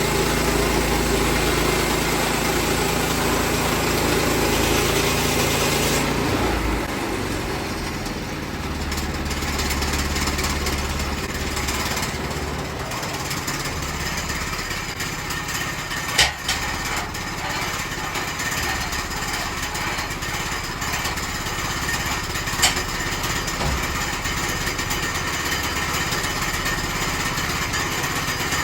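Small gas engine of a Woodland Mills HM122 portable band sawmill running steadily, its note dropping and changing about six seconds in. Two short sharp clicks sound partway through.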